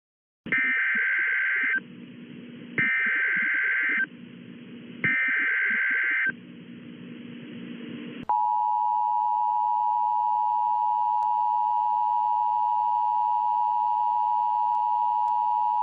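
Emergency Alert System activation: three short bursts of SAME header data tones about a second apart, then, just past the middle, the two-tone attention signal (853 and 960 Hz together) held steady for the rest of the stretch.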